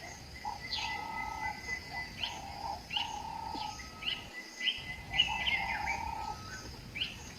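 Birds chirping: short, quick sweeping chirps repeating about once or twice a second, over held high tones that start and stop.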